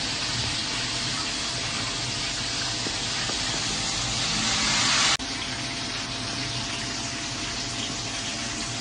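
Tower drip coffee maker brewing: a steady hiss of hot water running through the filter into the jug. It swells slightly and then drops suddenly about five seconds in, continuing more quietly.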